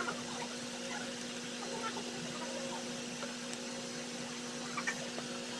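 A steady low hum holding two fixed pitches, with a few faint, brief ticks scattered through it.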